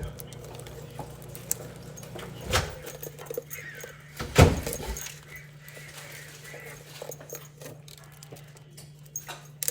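Knife work on a cutting board while a bell pepper is cut: scattered sharp clicks and two heavier thumps, the second one about four and a half seconds in the loudest, over a steady low hum.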